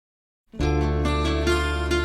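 Silence, then about half a second in the intro of a song starts abruptly: plucked-string melody notes over a held low bass.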